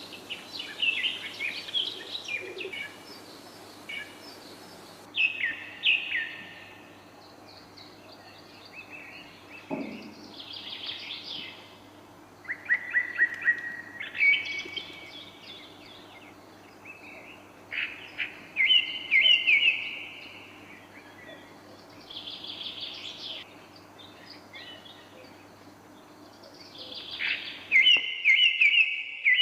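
Small birds chirping: short runs of rapid, high chirps that come in bursts every few seconds, over a faint steady low hum. A single soft knock sounds about a third of the way through.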